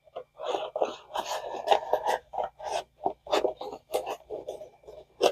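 Cardboard box and paper being handled: a quick, irregular run of short rubs and scrapes.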